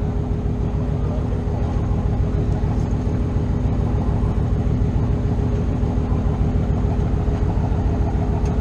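Boat engine running steadily: a low rumble with a steady hum over it.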